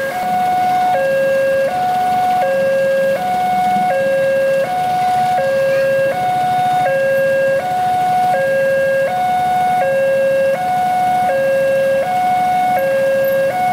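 Railway level-crossing warning alarm sounding two alternating electronic tones, a lower and a higher, switching about every three-quarters of a second: the signal that a train is approaching and the crossing is closed.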